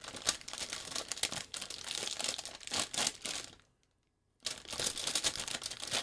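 Plastic snack wrapper crinkling loudly as it is handled and torn open, with many quick crackles. There is a short gap of silence a little past the middle.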